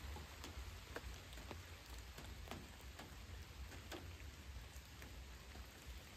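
Rain falling steadily, with single heavier drops landing close by as irregular sharp ticks a few times a second or less. A low rumble sits underneath.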